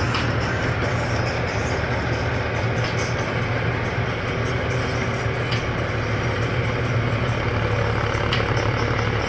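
Tractor-mounted Standard combine harvester running steadily while harvesting paddy: an even engine and machinery drone, with a few faint clicks.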